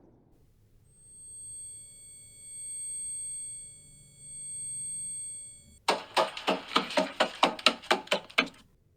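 High-pitched ringing of several steady thin tones that swell and fade, followed near the end by a fast, even run of about a dozen sharp knocks, roughly five a second.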